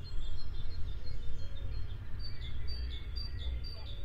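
Small birds chirping, a quick run of short high chirps in the second half, over a steady low rumble.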